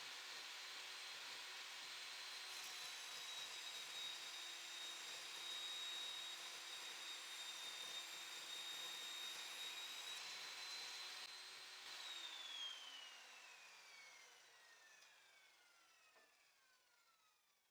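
Electric circular saw running, its high motor whine dipping slightly in pitch while the blade cuts through cedar board for several seconds. About twelve seconds in the motor is switched off and winds down with a steadily falling whine.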